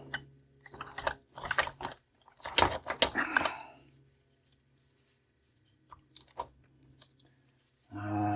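Metal sockets and hand tools clinking and clattering as they are handled and sorted through, in irregular clicks that are busiest in the first four seconds and sparser after. A short hummed voice sounds near the end.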